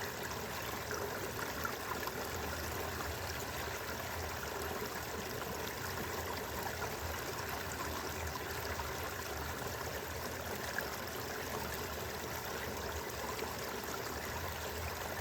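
Steady rushing background noise with a low rumble.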